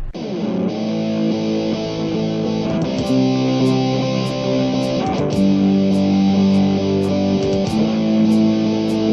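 Instrumental guitar music: strummed guitar chords that change every few seconds over a steady beat, with a light high tick about twice a second coming in about three seconds in.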